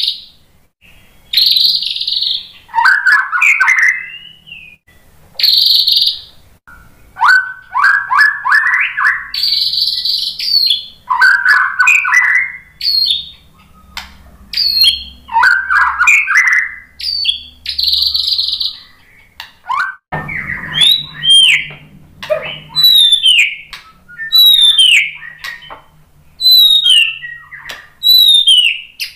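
White-rumped shama singing: bursts of harsh, scratchy notes alternating with quick rattling trills, then, about two-thirds of the way through, a run of clear whistled notes that slide down in pitch, about one a second.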